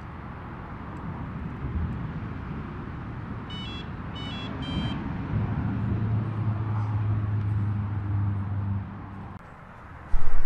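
An engine running with a steady low hum that grows louder through the middle and drops away about nine seconds in. Three quick clusters of short high chirps come about three and a half to five seconds in.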